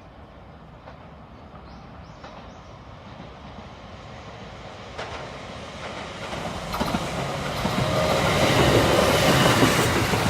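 Electric train on the Kintetsu Nara Line approaching, growing steadily louder, with its wheels clicking over the rail joints.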